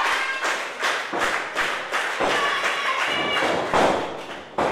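Thuds and stomps on a wrestling ring's canvas as wrestlers grapple and move, over shouts and scattered clapping from a small crowd in a hall. A sharp, loud thud comes just at the end.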